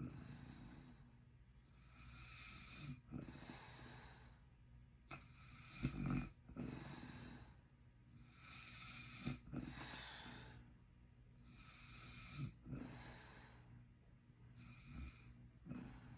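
A man snoring in his sleep, one breath about every three seconds, each with a low rattling snore and an airy hiss.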